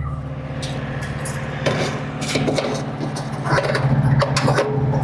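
Hands handling the fuel cap and tank of a small gas-powered wood chipper to check the fuel, with scattered clicks and knocks over a steady low hum.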